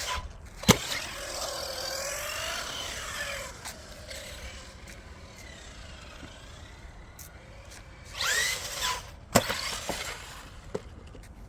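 Radio-controlled monster truck's electric motor whining as it is revved up and down, twice, with a sharp knock about three-quarters of a second in and another near the end, as the truck hits the ground.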